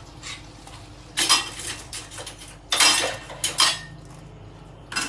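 Dishes and cutlery being handled at a kitchen sink: a few separate clattering knocks and clinks about a second in, near the middle and near the end, with the tap turned off.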